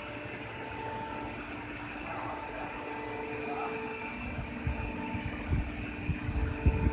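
CK61125 CNC lathe running during deep-hole boring: a steady machine hum with several held tones. About four seconds in, an irregular low rumble joins it and grows louder.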